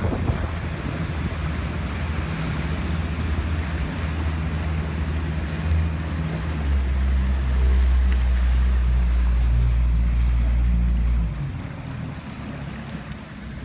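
Motorboat engine running steadily on the river, with wind buffeting the microphone. The low hum grows louder about halfway through, holds for several seconds, then drops back near the end.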